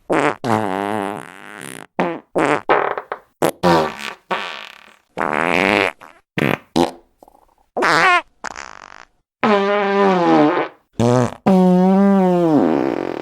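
A rapid series of fart sound effects, about a dozen separate farts. Some are short and sputtery, others are drawn out with a wavering pitch, the longest lasting about two seconds near the end.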